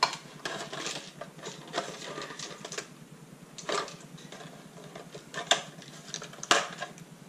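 Plastic and metal parts of a Larc M19 BB machine gun handled and worked apart by hand: a run of small clicks and rattles with a few sharper knocks, the loudest near the end.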